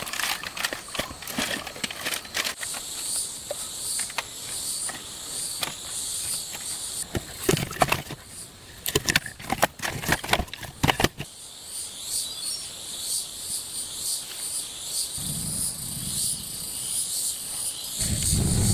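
Insects chirring in a steady pulsing chorus, with a run of sharp clicks and knocks through the first eleven seconds or so, and a low rumble near the end.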